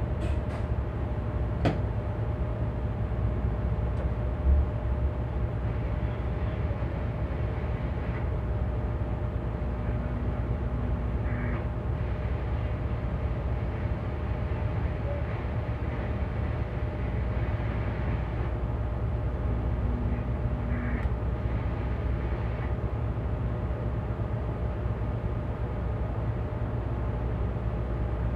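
A crew boat's marine diesel engines running steadily during a berthing manoeuvre, a continuous low drone, with a short thump about four seconds in.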